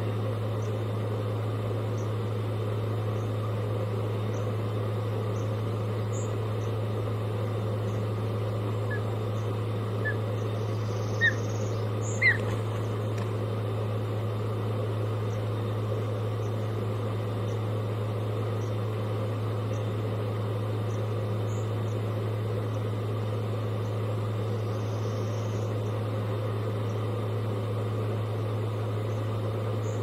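A few short, high chirping calls from an osprey at its nest, two louder ones close together a little before halfway, over a steady low hum.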